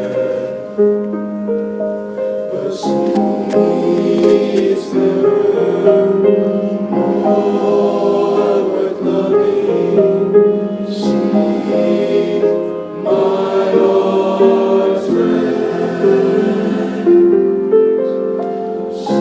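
Male choir singing in several parts, holding long chords that change every second or two.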